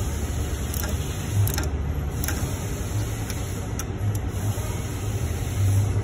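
A steady low engine rumble in the background, with a few short clicks from a socket ratchet on an extension, spaced about half a second to a second apart, as the fan hub nuts are turned.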